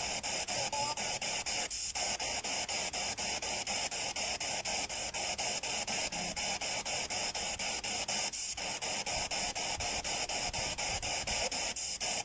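Spirit box (a radio that sweeps rapidly through stations) hissing with static, chopped into rapid even pulses by the scan, with a few brief dropouts.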